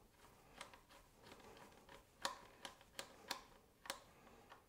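Faint, irregular light clicks of a hand tool and a flanged button-head bolt as the bolt is fitted and started into the fender mount.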